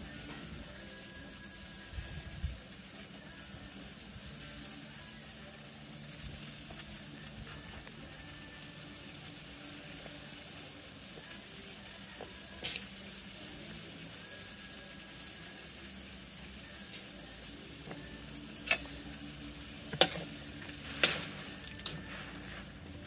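Water boiling in a metal wok around a block of instant noodles: a steady bubbling hiss. Near the end a few sharp clinks of a metal spatula against the wok.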